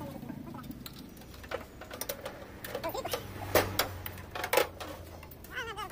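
Scattered sharp clicks and knocks at irregular intervals, the loudest two about a second apart in the second half, over a faint low hum.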